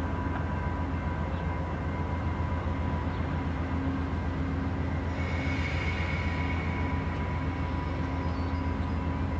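VIA Rail passenger train standing at the platform with its diesel locomotive idling: a steady low hum, with a brief hiss about five seconds in.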